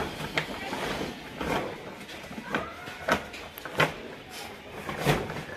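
Plastic tarpaulin sheet being pulled and folded by hand, rustling with several sharp crackles and snaps as it is handled.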